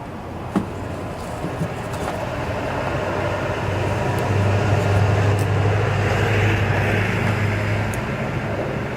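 A motor vehicle passing on a road: a steady low engine and tyre hum that swells over several seconds, peaks past the middle, then fades away.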